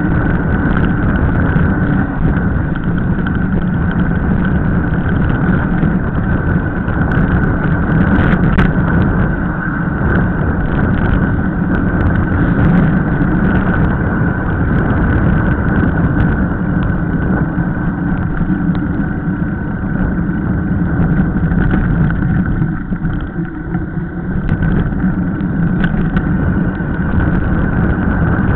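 Steady rush of wind on the microphone and tyre noise from a mountain bike going fast downhill on wet asphalt. It eases briefly about three-quarters of the way through.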